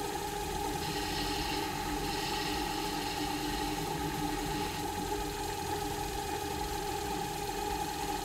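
Small bench lathe running with a steady motor hum as it spins a cue shaft, while the turning tool cuts down a freshly fitted jump tip close to the ferrule. The cut is heard as a higher hiss twice in the first five seconds.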